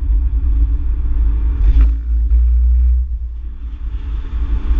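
Car engine and road rumble heard from inside the cabin of a car driven fast on a race track, deep and continuous. There is a brief knock about two seconds in, and the engine note holds steady for about a second before easing off.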